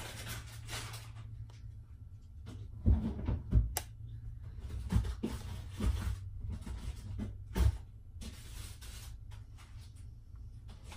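Kitchen handling noises: a string of dull knocks and thumps, two loud ones about three seconds in and another near eight seconds, over a steady low hum.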